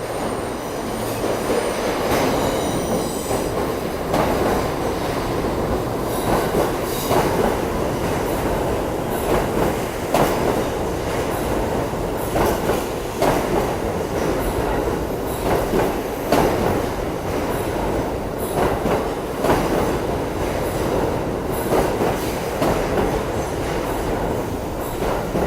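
New York City subway train moving along the track, its wheels clacking irregularly over rail joints, with a high wheel squeal in the first few seconds.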